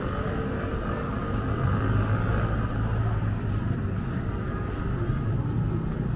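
Street ambience with a vehicle engine running, its low hum swelling a little about two seconds in, over a steady background of city noise.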